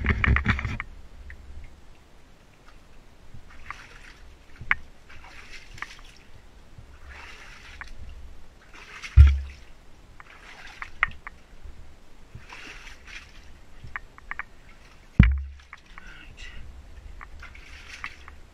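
Wellington boots wading and sloshing through shallow water on a stone tunnel floor, a splash about every second, with small clicks and a few heavy low thumps, the loudest about nine and fifteen seconds in.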